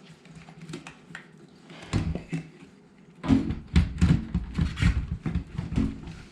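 Scattered clicks, then from about three seconds in a rapid run of knocks and thumps: hands working loose plastic and metal parts of a Kenmore dishwasher.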